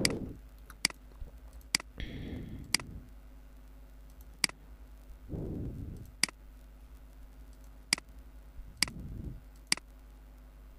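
Computer mouse button clicking, about nine single sharp clicks spaced irregularly one to two seconds apart.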